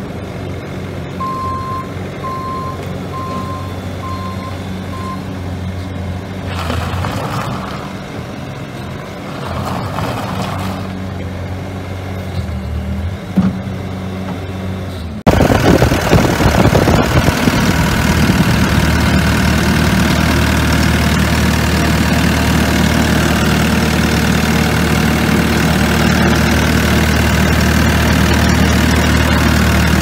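2018 Bobcat S570 skid steer's four-cylinder diesel engine running as the machine moves about. A short run of six faint beeps from its backup alarm comes in the first few seconds. About halfway through, the engine is suddenly much louder and steady, heard up close at the open engine bay.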